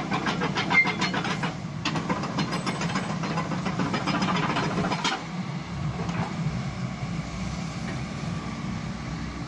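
Kobelco SK75 mini excavator running as its arm and bucket are worked, the diesel engine giving a steady hum. A rapid, regular ticking rides over it for the first five seconds or so, then stops, leaving the engine running on its own.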